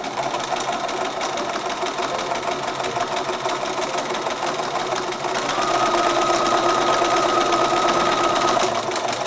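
Bernina B215 sewing machine running steadily, its needle sewing a straight stitch through cushion-cover fabric. It gets louder, with a steady whine added, about halfway through.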